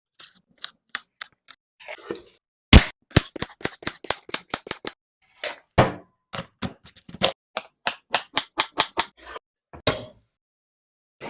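Rapid runs of sharp clicks and taps from kitchen utensils, about five or six a second, with short pauses between runs and a louder knock near three seconds in.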